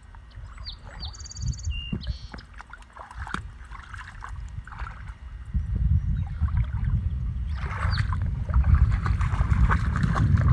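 A dog wading and sloshing through shallow marsh water among reeds, the splashing getting louder from about halfway through. A few high bird chirps sound about a second in.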